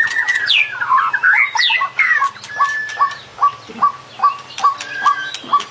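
White-rumped shama (murai batu) singing: a rich run of varied whistles and quick falling sweeps, over a regular string of short clipped notes about two or three a second. It is a long-tailed, black-tailed bird in full song, with a repertoire full of varied phrases.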